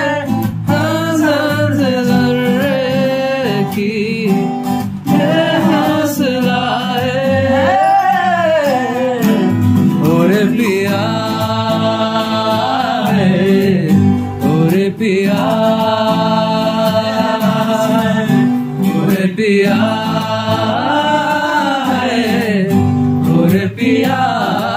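A man singing a Bhojpuri song to two acoustic guitars.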